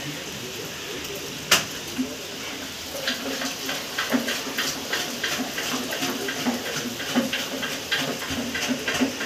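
Steady rain, with irregular drips tapping close by that grow busier after about three seconds, and one sharp click about a second and a half in.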